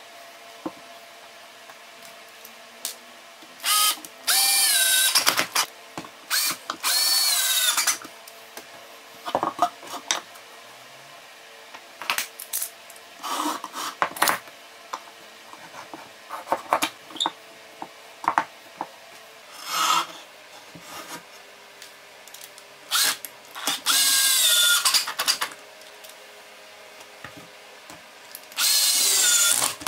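Cordless drill/driver running in about four short bursts, driving screws into a plywood box, its motor whine sagging in pitch under load. Between the bursts come short knocks and clicks of clamps and boards being handled.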